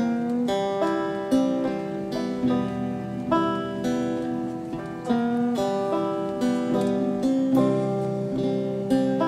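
Acoustic guitar music: picked notes and chords in a steady, unhurried rhythm.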